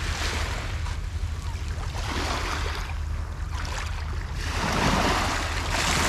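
Small waves of a calm sea lapping over a pebble shore, swelling twice, about two seconds in and again around five seconds in, over a low wind rumble on the microphone.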